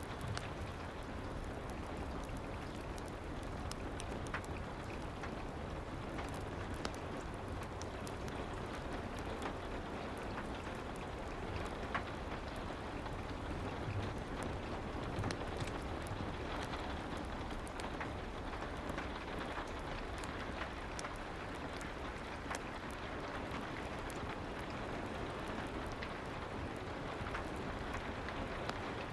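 Soft rain falling steadily as an even hiss, with scattered small crackles and ticks from a fireplace.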